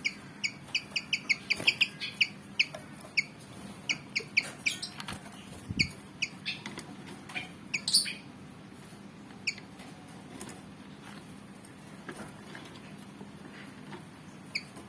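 Malaysian pied fantail giving a quick series of short, sharp chip calls, packed closely for the first few seconds, then thinning out, with a single call near the end.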